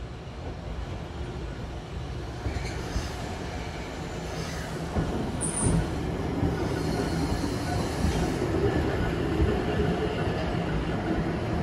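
Randen (Keifuku Electric Railroad) tram car pulling slowly into the platform, its wheels and motor rumbling louder as it draws near. Short high wheel squeals come about three to five seconds in.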